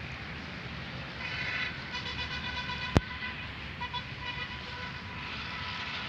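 A distant horn-like tone sounding on and off over steady outdoor noise, with one sharp click about halfway through.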